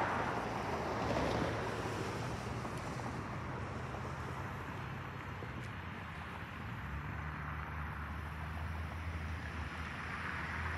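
Cars driving past on the road: tyre noise and a low engine hum, with wind on the microphone. The nearest, loudest pass comes about a second in.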